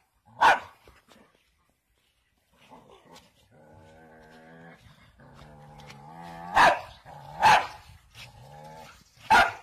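Dog barking: one sharp bark, a low steady growl lasting a few seconds, then three more barks near the end.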